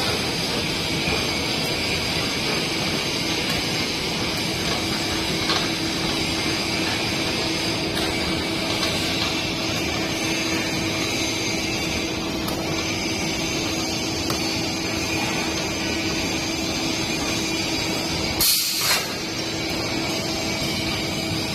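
Square pile steel cage welding machine at work: a steady hissing, spraying noise with a faint hum, and one short louder burst near the end.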